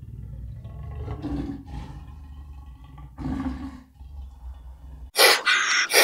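Jaguar growling in a low rumble, with two louder grunts about one and three seconds in. Near the end it cuts off abruptly and a much louder, harsh rasping noise follows.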